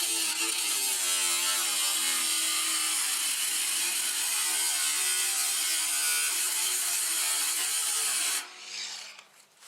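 Ryobi 18V ONE+ 4-1/2 in. cordless angle grinder running loud, its motor pitch wavering as the load on it changes. About eight and a half seconds in it is switched off and winds down.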